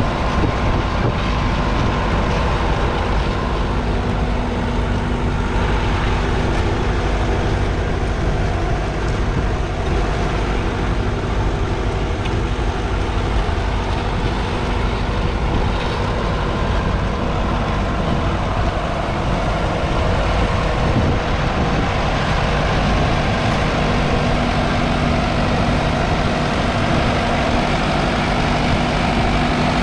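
1959 Massey Ferguson 65's 3.3-litre four-cylinder diesel engine running steadily under load while pulling a two-furrow reversible plough through the soil. Its note shifts slightly about three-quarters of the way through.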